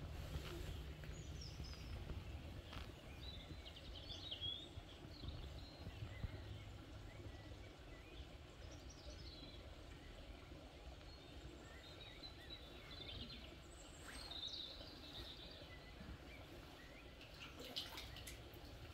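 Quiet outdoor ambience over a low steady rumble, with faint bird chirps scattered throughout. Near the end come a few short splashes and drips as a magnet on a rope is lifted out of the water.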